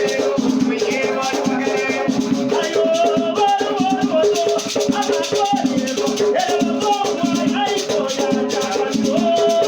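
Afro-Brazilian batuque ceremony music: rattles shaken in a steady, quick rhythm while voices sing a chant over them.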